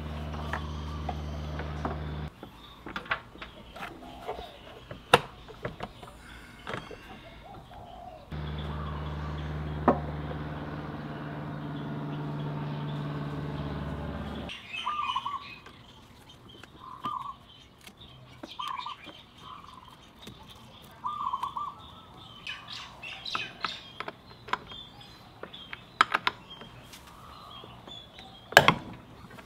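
Clicks and knocks of hand tools and metal parts while a scooter's exhaust and rear wheel are worked on, with a sharp crack near the end as a breaker bar is put to the rear axle nut. A steady low hum runs in two stretches that start and stop abruptly, and a bird chirps about five times in the middle.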